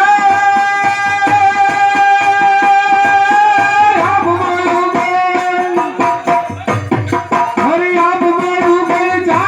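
Instrumental interlude of Indian devotional music: a tabla keeps a steady rhythm under long held melodic notes, one high note for about four seconds, then a lower one.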